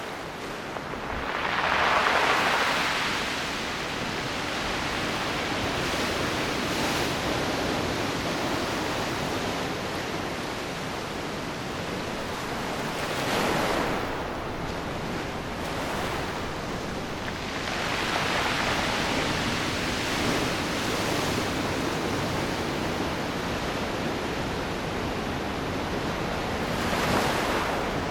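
Ocean surf washing onto the shore in a steady hiss, with a wave swelling and breaking about four times: near the start, near the middle, a longer one after that, and again near the end.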